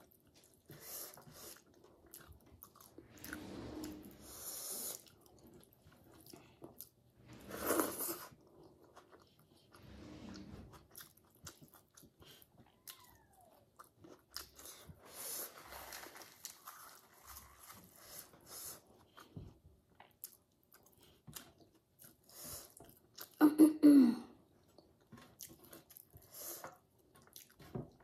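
Close-up eating sounds of a person chewing and biting food eaten by hand: wet chewing and mouth smacks with some crunchy bites, plus the soft squish of fingers mixing curry on a metal plate. A brief, louder sound falling in pitch comes near the end.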